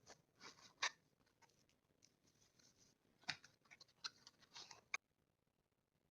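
Quiet handling sounds from unboxing a bottle of fountain pen ink: scattered light taps, clicks and rustles, with a sharper tap just before a second in and another a little after three seconds, stopping abruptly about five seconds in.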